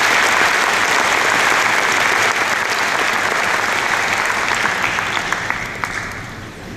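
Large audience applauding in an arena hall, a dense wash of clapping with a few individual claps standing out, dying away over the last second or two.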